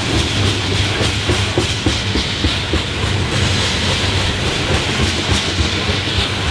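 Loaded coal hopper cars rolling past, their steel wheels rumbling on the rails. A run of clicks as the wheels cross rail joints comes in the first few seconds.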